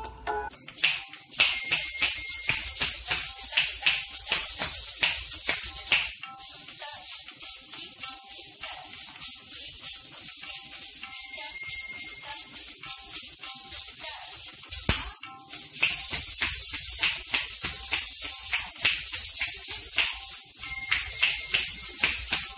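Kathak footwork: ghungroo ankle bells jingling in rapid rhythmic bursts with the dancer's stamping steps, over sustained melodic accompaniment notes. A brief break about two-thirds of the way through.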